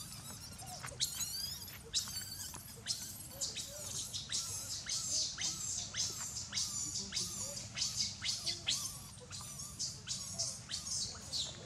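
Baby monkey giving a rapid, steady series of shrill, high-pitched squeaking calls, about two a second.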